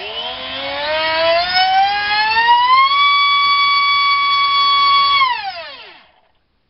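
Racerstar BR2406S 2300 kV brushless motor spinning a TGS 4.5x4.5 sports prop on a 5S battery, run up to full throttle. Its whine rises steadily in pitch for about three seconds and holds level for about two seconds while pushing about 1.2 kg of thrust. It then falls in pitch as the throttle is cut and the motor spins down.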